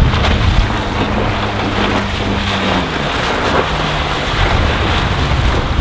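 Volvo Penta 4.3-litre V6 stern-drive engine of a small speedboat running on choppy water, under heavy wind noise on the microphone. The engine note drops about three seconds in.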